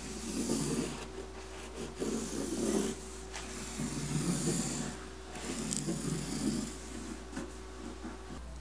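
Hands and a plastic tool rubbing and pressing carpet into the grooves of a glued subwoofer enclosure, in four rasping strokes of about a second each.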